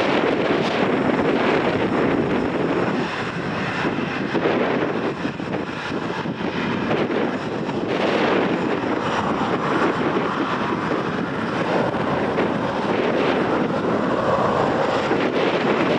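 Jet engines of a Boeing 737 airliner running steadily as it lines up on the runway and begins its take-off roll, with wind buffeting the microphone.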